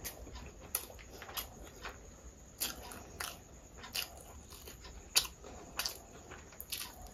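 Close-up eating sounds of a person eating curry and rice by hand: irregular wet smacks and clicks of chewing and of the fingers working the food, the sharpest about five seconds in.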